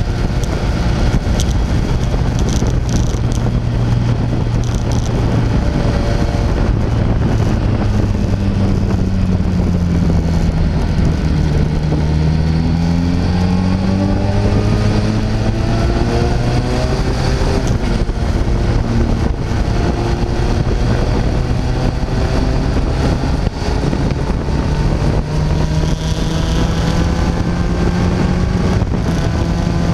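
Sport motorcycle engine running under way from the rider's seat, with wind rushing past. The engine's pitch dips and comes back up about ten seconds in, then climbs slowly through the second half as the bike gathers speed.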